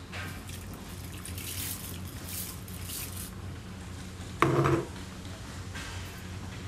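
Cooking sounds from a frying pan: a hiss of liquid in the pan, then one short, loud knock about four and a half seconds in.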